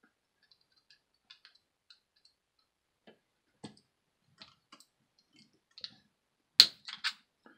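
Small screwdriver working a screw in the metal motor plate of a Lionel 2055 locomotive chassis: scattered faint clicks of the tip on the screw, then a sharp louder click near the end as the tight screw cracks loose, followed by a few smaller clicks.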